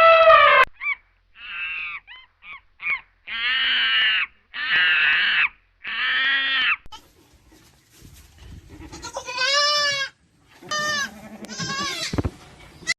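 Goats bleating: a string of separate quavering bleats, three long ones in a row after a few shorter ones, then more wavering bleats after a pause. Just before them, a long steady horn-like animal call cuts off within the first second.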